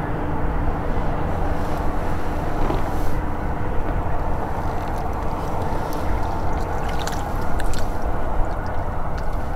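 A steady low rumble throughout, with a few faint clinks and splashes about seven to eight seconds in as a muskrat trap is handled and lowered into the water beside the hut.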